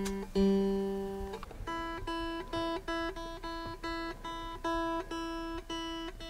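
Stratocaster-style electric guitar being tuned: the G string plucked and let ring a few times, then a higher string plucked repeatedly, about twice a second.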